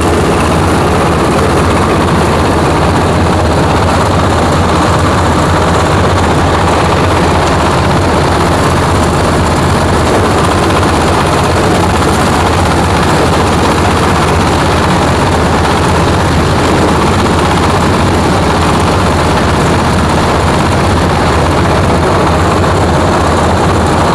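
Coconut-husk grinding machine running steadily and loudly, a low motor hum under a constant rushing noise as the husk is ground through a 5 mm screen into cocopeat powder.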